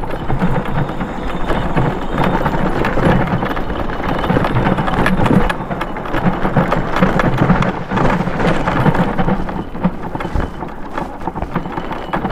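Daymak electric bike riding over a rough gravel and dirt trail: a steady, loud rumble of tyres crunching on stones, with many small knocks and rattles as the bike and camera jolt over the bumps.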